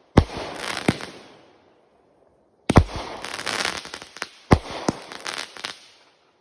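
A 200 g consumer firework cake firing single shots: three sharp bangs about two seconds apart, each followed by a hiss that fades away.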